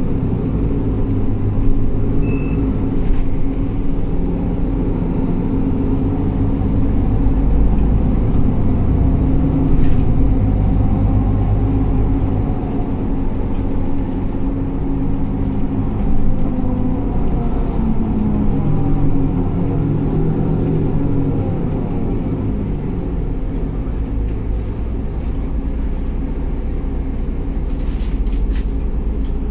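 Inside a Mercedes-Benz Citaro G C2 articulated city bus on the move: steady engine and road rumble, with the engine note slowly rising and falling as the bus speeds up and slows. A few brief rattles come near the end.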